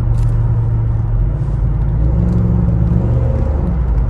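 BMW X5 E53's V8 engine heard from inside the cabin while driving, a steady low drone whose revs rise a little past halfway and then drop back. The automatic gearbox is held in third gear, typical of its limp-home mode.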